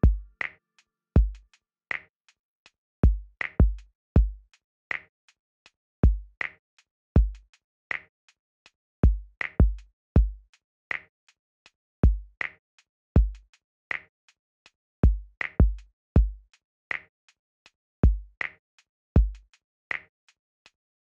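Electronic background music stripped down to its drum machine beat. Deep kick drums and a snare-like hit about every one and a half seconds, with light ticking hi-hats between them and no melody.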